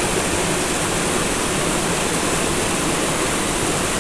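Mountain creek cascading over boulders: a steady, even rush of white water.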